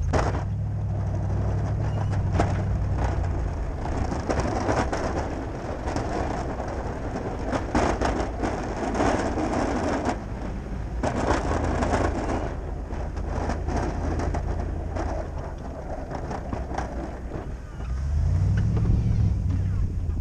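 Ford F-250 pickup's engine running as its SnowEx V-plow blade pushes and scrapes snow, with crunching and scraping from the blade through much of the middle. Near the end the engine works harder as the blade shoves snow up into a snowbank.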